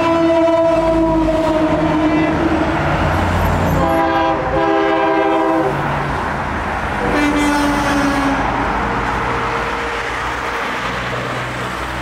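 Truck air horns blowing three long blasts as convoy trucks pass: one ending about two seconds in, a multi-tone blast from about four to six seconds, and a shorter, lower one around seven to eight seconds. Under the horns is steady highway traffic noise.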